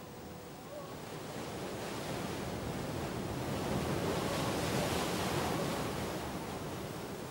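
Sea surf: a wave noise that swells to a peak around the middle and then falls away.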